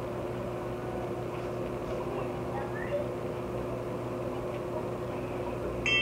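Steady indoor room hum with a faint steady tone. Right at the end a bright chime sound starts, several clear ringing tones at once.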